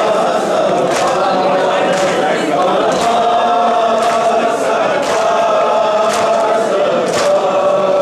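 Crowd of men chanting a noha lament in unison, with rhythmic chest-beating (matam) slaps about once a second.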